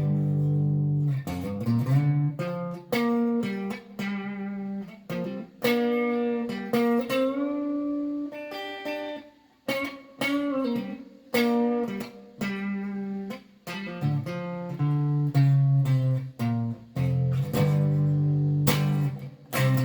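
Xavier PRO830 Telecaster-style electric guitar played clean through a Marshall Origins amp: picked single-note phrases and chords with string bends, in short phrases with brief pauses between them.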